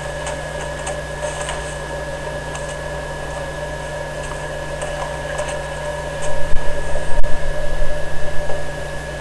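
Steady electrical hum and hiss from a consumer camcorder's audio, with no clear event. Louder, irregular low rumbling comes in from about six and a half to eight and a half seconds in.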